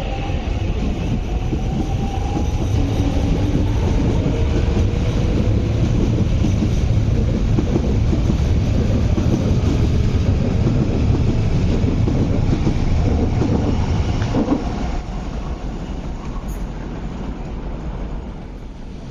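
MTR East Rail Line R-train electric multiple unit running past a station platform: a steady rumble of wheels on the track, with the whine of its electric traction motors gliding in pitch during the first few seconds. The sound drops noticeably about fifteen seconds in.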